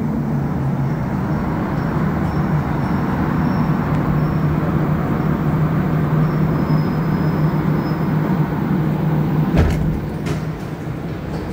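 Interior of a Montreal Metro AZUR train running through the tunnel on rubber tyres: a steady rumble with a low hum. A couple of sharp clicks come near the end, and the noise eases slightly after them.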